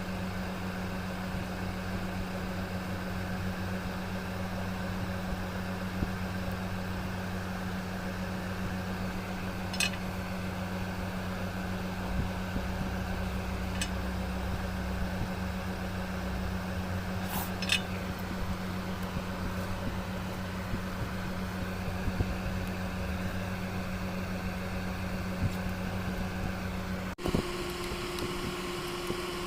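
Steady low electrical hum with a few faint clicks scattered through it. It cuts off abruptly near the end, and a higher steady tone follows.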